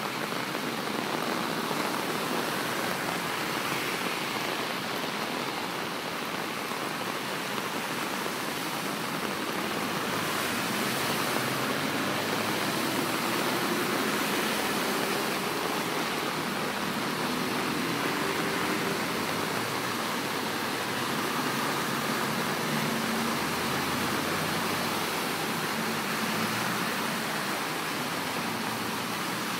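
Steady rush of heavy rain and floodwater over a flooded street, with cars driving through the water and splashing it up. An engine hum rises faintly in the middle.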